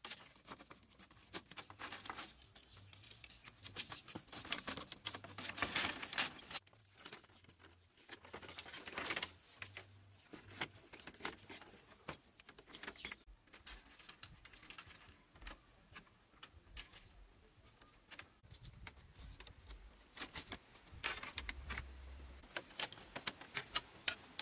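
Small clicks, taps and rustling of bamboo and wooden poles being handled and bound, with a few louder stretches of rustling about six and nine seconds in.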